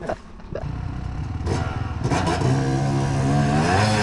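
Dirt bike engine coming in about halfway, revving up with its pitch rising, then held at higher revs and getting louder.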